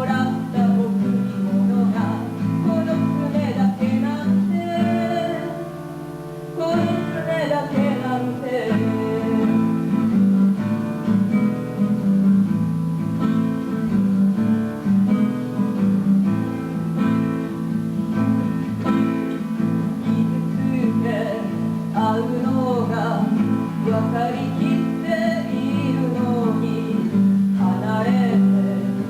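Acoustic guitar strummed and picked, accompanying a singer performing a song. The music drops to a quieter passage about five seconds in, then picks up again.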